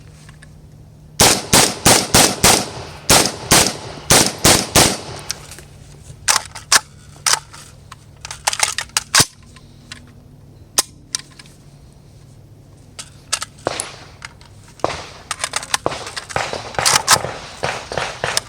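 WASR-10 AK-pattern rifle in 7.62×39 firing: a fast string of about a dozen shots a second in, then scattered single shots with pauses between them.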